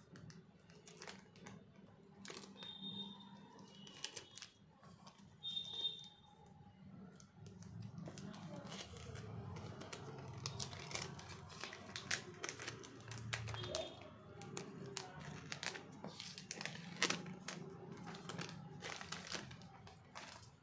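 Packaging being handled: plastic and paper crinkling and rustling, with many scattered light clicks and taps, busier in the second half.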